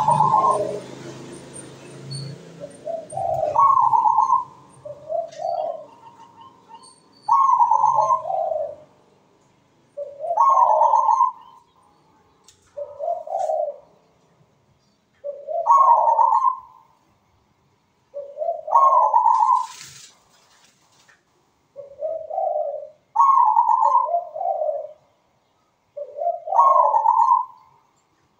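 Zebra dove (perkutut) cooing, its manggung song, in repeated phrases about every three seconds, each starting on a higher note and stepping down to lower ones.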